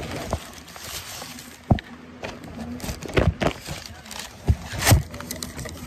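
Handling noise from a phone held in the hand: scattered knocks, clicks and rubbing on the microphone as it is moved about, the loudest knocks about three and five seconds in.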